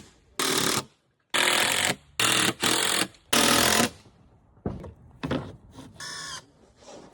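A power tool run in five short bursts, each under a second, starting and stopping sharply, then quieter knocks and a brief pitched squeak near the end.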